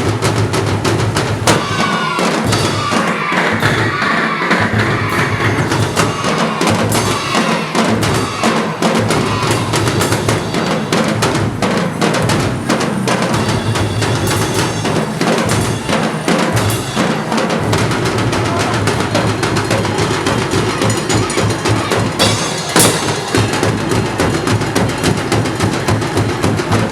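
Loud dance music with a strong, regular drum beat.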